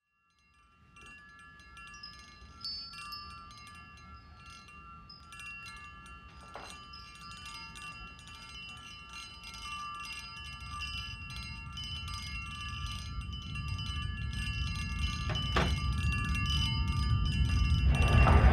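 Crystal wine glasses on a silver tray trembling and clinking together: a dense tinkling with many held ringing tones, and two sharper knocks, about six and a half and fifteen and a half seconds in. Beneath it a low rumble of approaching jet aircraft swells steadily louder.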